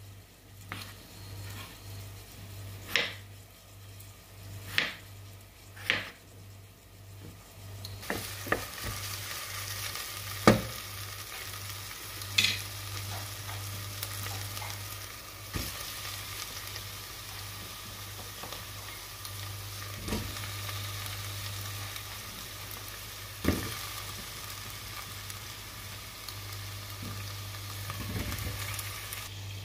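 A knife chopping potato on a wooden cutting board, a few sharp knocks. About eight seconds in, sliced red onions sizzle steadily in a stainless steel pot, with occasional knocks as they are stirred and potato cubes are dropped in.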